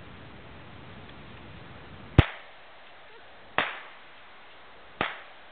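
Three gunshots from a shouldered long gun, about a second and a half apart, the first the loudest, each dying away quickly.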